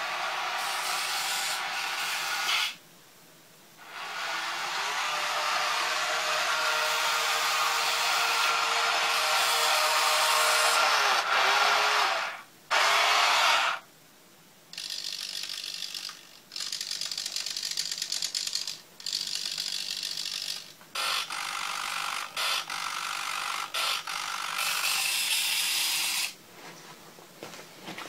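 Electric drive motors and gearboxes of a remote-control Merkava model tank whirring with a steady whine. They run long at first, then in many short bursts with brief stops, and are quieter near the end.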